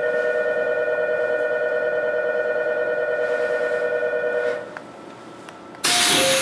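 Station departure bell ringing as a steady two-note electronic tone, which stops about four and a half seconds in. Near the end comes a sudden loud rush of noise with an alternating two-note chime, as the train's doors begin to close.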